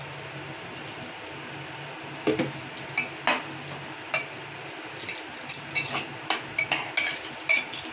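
Steel spatula stirring a watery curry in a pressure cooker, clinking and scraping against the pot: a run of sharp clicks that starts about two seconds in and gets busier towards the end, over a low steady hum.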